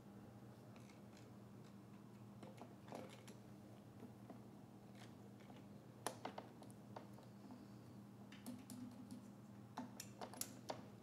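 Faint scattered clicks and taps of a small-engine carburetor and its fuel hoses being handled and fitted back onto the engine, over a steady low hum.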